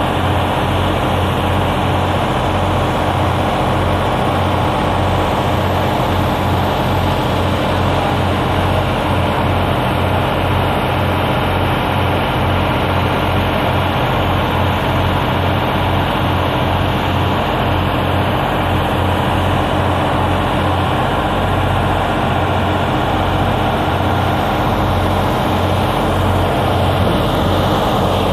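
A trailer-mounted engine generator set running steadily. It makes a constant low drone that does not change.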